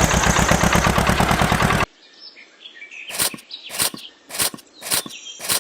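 A rapid, rasping rhythm that cuts off abruptly about two seconds in, followed by sharp knocks about every half second, with birds chirping faintly.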